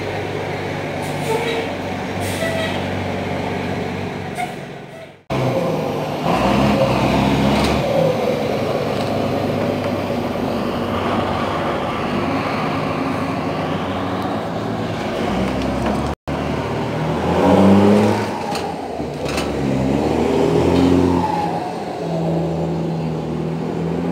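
Mercedes-Benz 1318 bus diesel engine revving as it pulls away, its pitch rising and falling several times through the gear changes, with its modified turbo whistling. By the owner's account its injection pump is out of calibration. The sound cuts out briefly twice.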